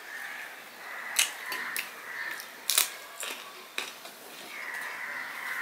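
Eating sounds: rice and cooked greens mixed and squeezed by hand on a steel plate, with scattered sharp clicks and smacks of chewing and mouth noises, the loudest nearly three seconds in.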